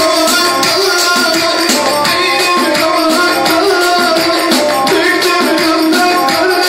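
Loud amplified live folk dance music with a fast, even percussion beat under a melody line, and a man singing into a microphone.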